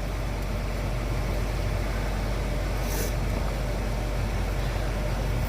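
A steady low mechanical hum, even in level, with a short light click about three seconds in.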